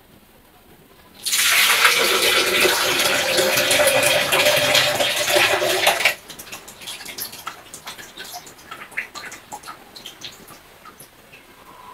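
Coconut water pouring in a steady stream from an opened young green coconut into a plastic blender jug, starting about a second in and stopping suddenly about five seconds later. Then the last of it drips into the jug in scattered drops.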